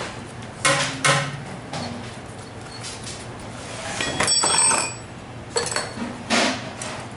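Metal clinks and knocks from a disassembled scooter brake caliper and hand tools being handled during brake pad removal: about five separate knocks, with a ringing metallic clink around four seconds in.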